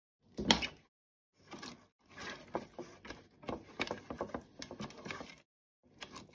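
A silicone pastry brush scrubbing and swishing over the bottom of a metal springform cake tin, spreading vegetable oil in a run of quick strokes. A single sharp knock on the tin comes about half a second in.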